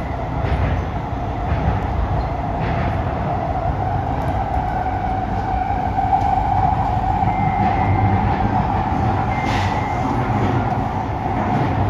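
Interior noise of an SMRT C151A metro train running through a tunnel: a steady loud rumble and roar of wheels on rail. Two brief high squeals come in the second half.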